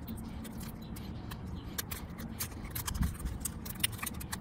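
Blue masking tape being pressed and smoothed onto a 3D-printed plastic part, giving scattered crinkling clicks, over a low steady background rumble.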